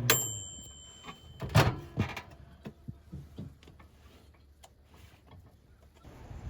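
A sharp click with a short ringing tone, then a loud thud about a second and a half in, a second knock just after it, and a few lighter knocks and taps, like a door or panel being shut and things being handled.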